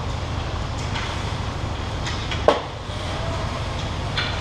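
Ice hockey play on a rink: a steady low rumble, a few light clicks of sticks and skates, and one sharp bang with a short ring about two and a half seconds in.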